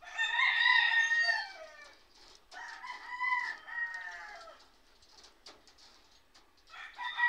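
Long drawn-out bird calls, three in all: each is held for a second or two and falls in pitch at the end, and the third begins near the end.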